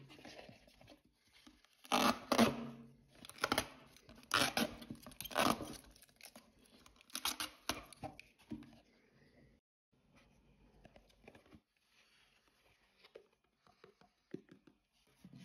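Hard plastic storage bin being handled and turned over on a wooden table, making scraping and rubbing noises in irregular bursts. The noises are loudest in the first half and grow fainter and sparser near the end.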